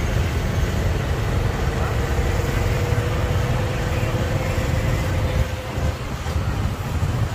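Road noise heard from a slow-moving motorbike in traffic: a steady low rumble of engines and wind, with a faint steady hum for a few seconds in the middle.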